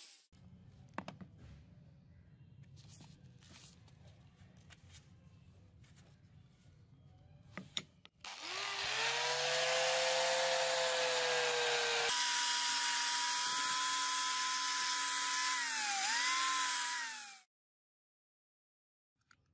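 Electric angle grinder with a sanding disc running on the hatchet's steel head: a loud steady motor whine over the hiss of abrasive on metal, starting about eight seconds in. Its pitch dips briefly under load near the end before it cuts off suddenly. Before it, only a faint hum and a few light clicks.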